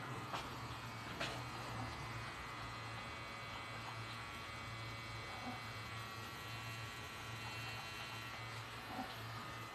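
Pen-style rotary tattoo machine running with a steady electric buzz, with a couple of faint clicks in the first second and a half.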